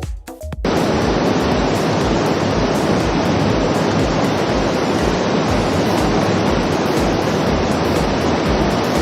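Waterfall's loud steady rush of water, cutting in suddenly under a second in, over the low beat of background music.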